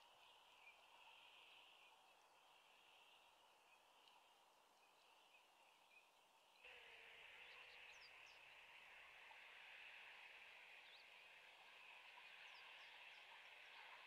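Near silence: faint outdoor ambience, a steady soft hiss that becomes slightly louder at an edit cut about six and a half seconds in. A few faint, brief high bird chirps come through in the second half.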